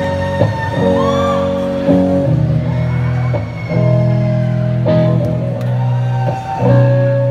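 Amplified electric guitar playing held chords that change every second or so, heard from the audience at a live concert, with a few crowd shouts and whoops over it.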